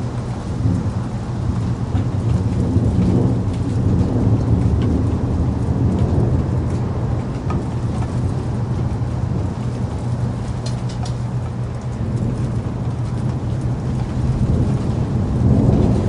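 Steady rain with low rolling thunder, the rumble swelling a few seconds in and again near the end.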